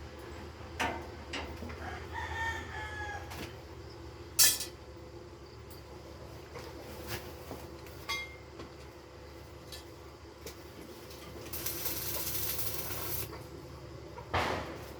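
A rooster crows once, a falling call lasting about a second, a couple of seconds in, amid scattered sharp knocks and taps from building work. A loud knock comes about four seconds in, a short hissing noise comes later, and a heavier thump comes near the end.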